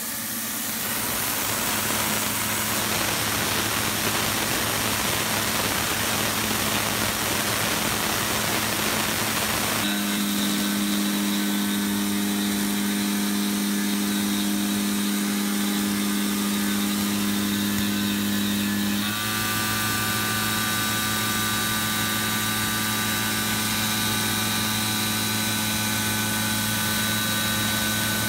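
Tormach PCNC 770 CNC mill milling aluminium plate with a Shear Hog indexable cutter. A steady hiss over the spindle hum for about ten seconds, then a strong steady pitched cutting tone as the cutter works along a slot, the tone changing about nineteen seconds in.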